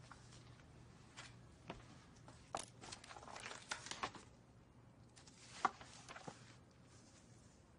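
Quiet handling of a hardbound yearbook: faint taps and paper rustling as its cover is opened and its stiff pages turned, with a sharper tap about five and a half seconds in. A faint steady hum runs underneath.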